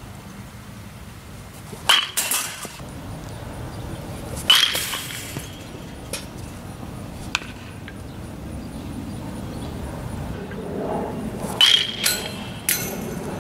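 Baseball struck by a metal bat: three sharp pings with a brief ringing tone, about two seconds in, about four and a half seconds in, and near the end, each followed by a couple of lighter knocks.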